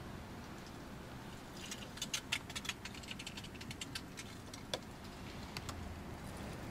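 Scattered light clicks and rattles for a few seconds as someone moves about in a car's driver's seat, over a faint steady low hum.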